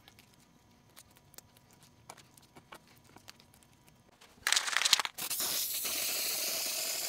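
Faint small ticks and scrapes, then about four and a half seconds in an aerosol spray paint can starts spraying in a loud steady hiss, with a brief break after the first burst.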